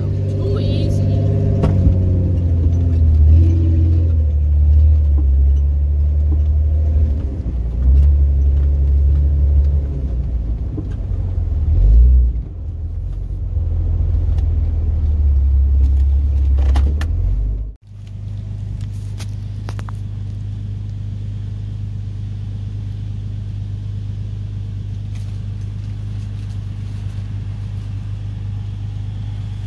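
Off-road vehicle's engine and drivetrain rumbling inside the cab as it drives a rough dirt trail, rising and falling with the throttle, with a few rattles over bumps. About eighteen seconds in, the sound cuts to a steadier, even engine drone.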